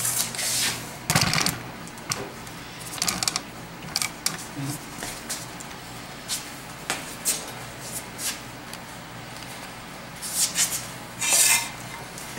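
Rummaging through a bin of scrap wood and metal offcuts: pieces knocking, clunking and scraping against each other in scattered bursts, with the loudest run of knocks near the end.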